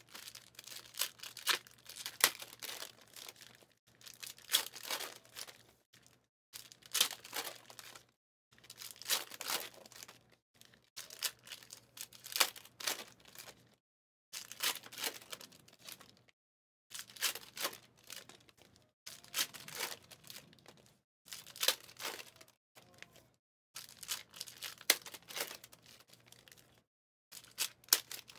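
Foil trading-card pack wrappers being torn open and crinkled while the cards are handled, in about a dozen short rustling bursts of roughly two seconds each, separated by brief pauses.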